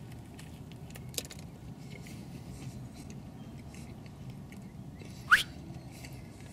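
A person chewing a mouthful of burger with the mouth closed: faint wet clicks over a steady low hum. About five seconds in, a short, sharp squeak rises quickly in pitch and is the loudest sound.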